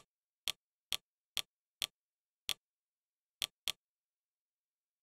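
Fire TV interface navigation clicks: eight short, sharp ticks over about four seconds, one for each step of the selection along a row of menu tiles, with silence between them.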